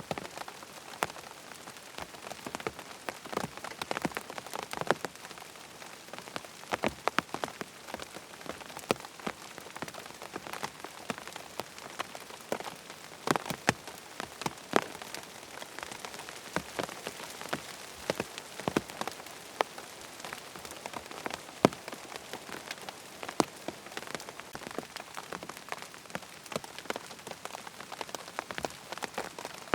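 Rain pattering on a tent's fabric: a steady hiss of rainfall with many separate, irregular drop taps landing close by.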